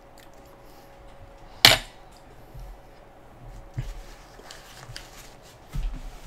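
A sharp metal clink about two seconds in as a fork is set down on the metal griddle tray, followed by soft chewing sounds.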